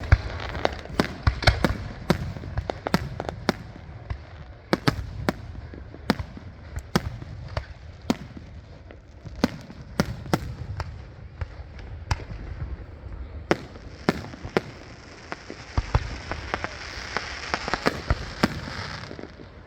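Fireworks going off in rapid, irregular succession, many sharp bangs and pops overlapping. In the last third a steady high hiss joins the bangs, then fades near the end.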